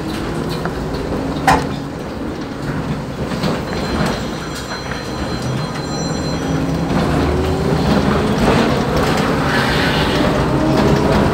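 Iveco Socimi 8820 trolleybus heard from inside while under way: the electric traction drive gives a whine that rises in pitch as the bus accelerates, in several tones together near the end. Under it run a steady rumble and rattle from the body and road, with one sharp knock about a second and a half in.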